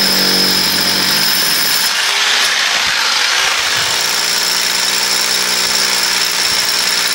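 Corded electric drill boring through a concrete wall, running continuously under load with a harsh grinding noise; the motor's pitch shifts about a second in and again around four seconds in.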